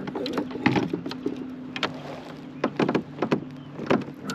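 Small waves slapping against a kayak hull in a string of short, uneven knocks, over a steady low hum.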